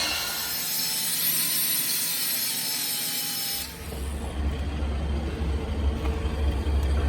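Workshop machinery running: a hissing, rubbing machining noise that changes abruptly about three and a half seconds in to a steady low machine hum.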